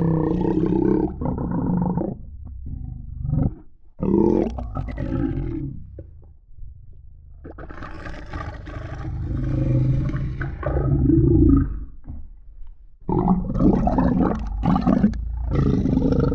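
Low, growling roars of a monstrous creature from a horror sound-effects track, coming in four long swells with short pauses between them.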